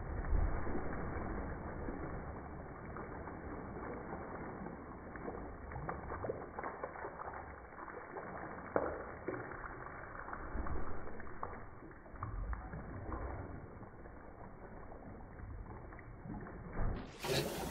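Pool water splashing and sloshing as a golden retriever paddles through it, heard slowed down with the slow-motion footage, so it comes out low and muffled with scattered splashes.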